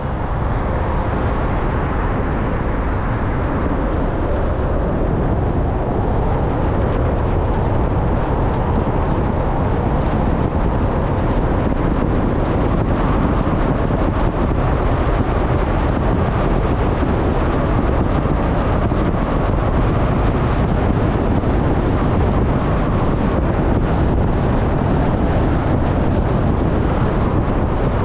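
Steady road and wind noise of a car driving along, with tyre rumble low down and wind hiss on the microphone.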